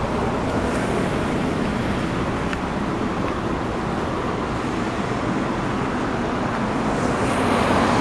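Steady road traffic noise from passing cars, with one vehicle growing louder as it passes near the end.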